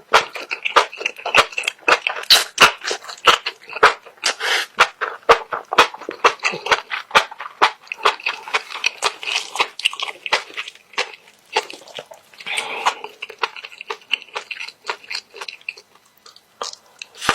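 Close-miked chewing of stir-fried squid: a dense, irregular run of sharp, wet mouth clicks and crunches.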